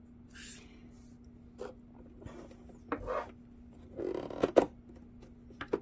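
Hands handling small plastic craft pieces and paper on a wooden tabletop: scattered rubs, taps and clicks, the loudest a sharp click about four and a half seconds in, over a faint steady hum.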